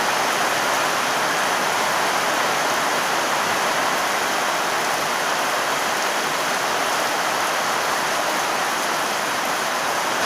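Rain falling steadily in a storm: an even, unbroken hiss of rain.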